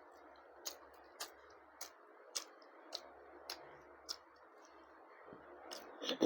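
Mouth chewing a mouthful of food, with sharp wet clicks and smacks at a steady rhythm of about two a second; a louder brief sound comes right at the end.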